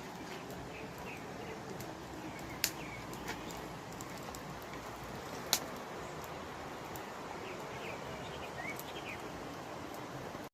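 Steady wash of water noise, with small birds chirping briefly now and then. Two sharp clicks stand out, about a quarter of the way in and again about halfway.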